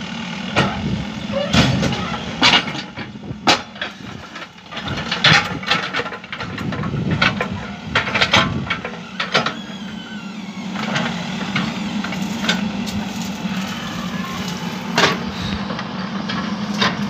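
Mahindra EarthMaster VX backhoe loader's diesel engine running steadily as the backhoe arm digs roadside soil, with a string of sharp knocks and clanks from the bucket and arm at work.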